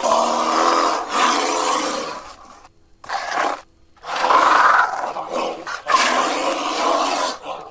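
Black bear calling in a series of loud, rough calls: a long one, a short one, then two more long ones, with brief pauses between.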